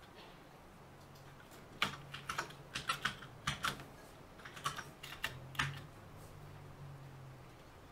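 Typing on a computer keyboard: about a dozen quick keystrokes in short clusters, starting about two seconds in and stopping near six seconds.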